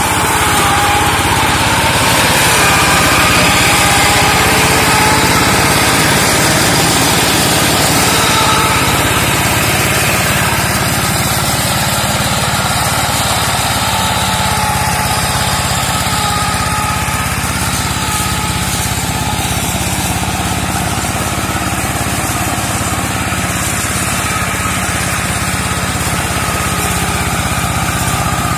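Two-wheel hand tractor's engine, rigged as a brush mower, running steadily under load as it drives through undergrowth.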